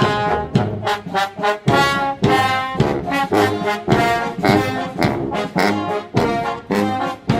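Background music led by brass instruments, playing short, punchy notes to a steady beat.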